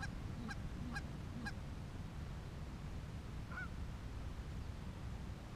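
Goose honks: four short honks about half a second apart, then one more about three and a half seconds in, over a steady low background rumble.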